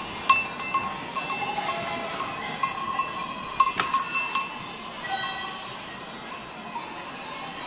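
Bells on goats' collars clanking and ringing over and over as the goats jostle at a hay rack, with a few sharp knocks, the strongest a little over three and a half seconds in.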